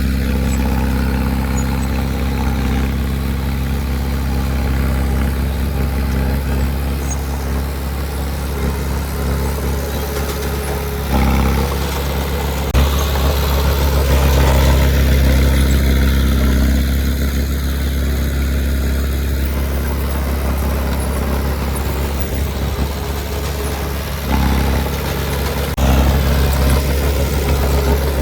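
Heavy earthmoving machine's diesel engine running steadily. Its level and note step up a few times as it works: once about a third of the way in, and again near the end.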